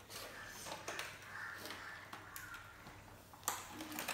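Faint rustling of small packaging being handled and opened by hand, with a few light clicks; the sharpest click comes about three and a half seconds in.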